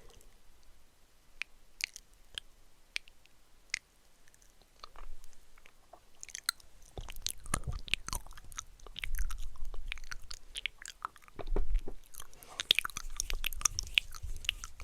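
ASMR mouth sounds close to the microphone: wet clicks and smacks, sparse at first, then coming thick and fast from about halfway through, with some low thuds.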